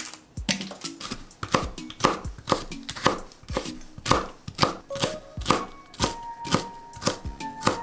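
Chef's knife chopping green pepper on a hinoki wood cutting board: even knocks of the blade against the board, about two a second.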